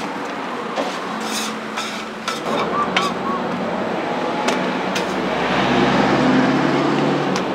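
Traffic passing a roadside stall: a motor vehicle rumble builds about a third of the way in, is loudest a little after halfway and drops off near the end. A few sharp clicks and taps from utensils on the metal roti griddle sound over it.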